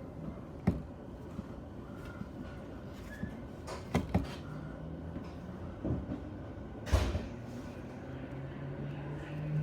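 Several sharp, irregular knocks over a low rumble, with a steady low hum from a train that comes in about halfway and grows louder near the end.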